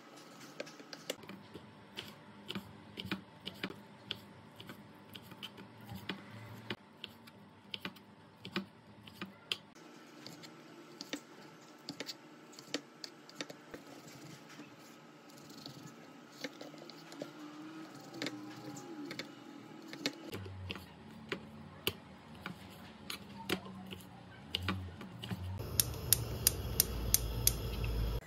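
Kitchen knife slicing raw chicken breast on a wooden cutting board: irregular sharp taps and knocks of the blade against the board. Near the end, a gas hob's igniter clicking rapidly, about three clicks a second, over a low rumble as the burner lights.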